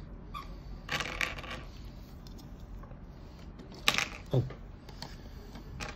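Plastic LEGO pieces clicking and clattering as minifigures and a brick-built spaceship are handled and pressed together on a baseplate, with a few sharp clicks.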